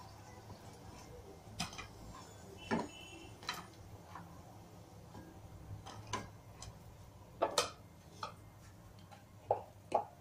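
Hot frying oil in a kadhai giving off occasional sharp pops and crackles, about ten scattered through the stretch, as the oil stays on the heat with only a stray crumb left in it.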